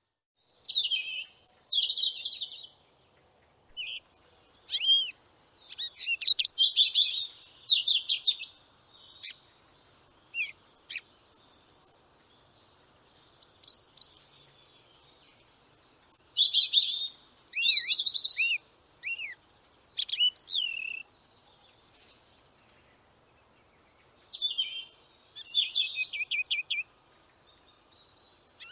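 Bald eagle calling: several bouts of high, rapid chirping notes, some sliding quickly in pitch, separated by pauses of a few seconds.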